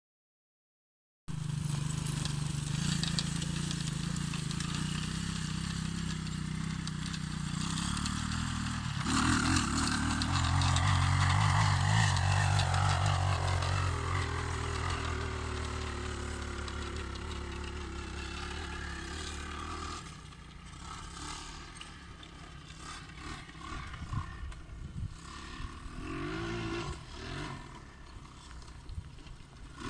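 Bashan 200cc quad's engine running: it starts a little over a second in, gets louder about nine seconds in and falls in pitch, then stops abruptly about twenty seconds in. Uneven low rumbles follow.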